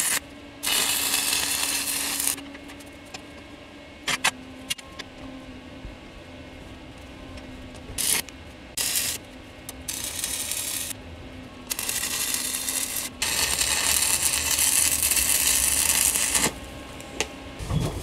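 Electric arc welding on a steel frame: stretches of crackling, hissing arc with two short tack welds in between, the longest run about three seconds near the end, over a steady low hum.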